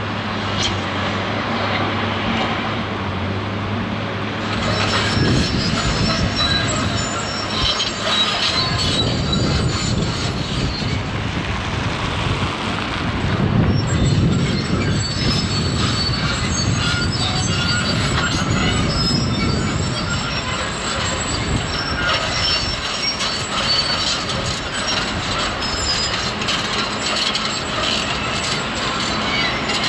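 Doosan DX225LC crawler excavator working in stony ground. Its diesel engine hums steadily, and from about four seconds in loud, high-pitched metal squealing and scraping takes over as the machine digs.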